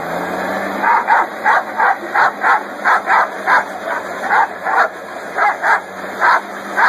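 A dog barking rapidly and repeatedly, about three short barks a second, starting about a second in.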